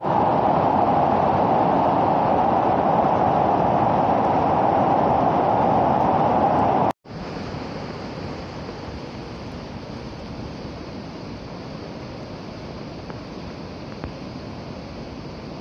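Muddy floodwater rushing down a swollen river, a loud steady rush of churning water. About seven seconds in it cuts to a quieter, hissier rush of the torrent.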